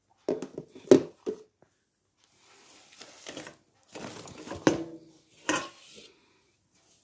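Plastic food containers and a cooking pot being handled: a few sharp knocks and clatters of lids and pot, with a soft rustle of the carrying bag between them.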